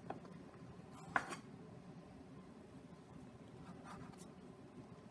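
Metal bench scraper pressed down through bread dough onto a wooden board: faint scraping, with two sharp taps a little over a second in.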